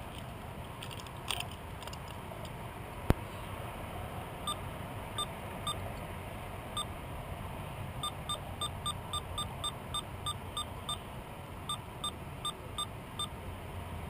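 A series of short, same-pitched beeps, coming in spells of about three a second, over the steady wash of water around a kayak. A single sharp click about three seconds in.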